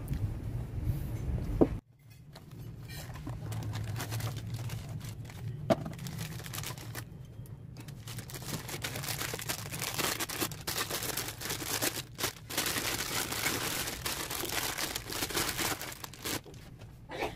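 Rustling and crackling handling noise from hands working over a dismantled steering rack and tools on a workbench, over a low steady hum, with a sharp click about two seconds in and another about six seconds in.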